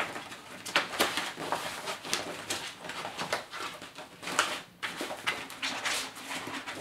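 Rustling and scraping of a stiff white light-tent backdrop being rolled and tucked by hand over the tent's frame bar, with irregular sharp crinkles and knocks.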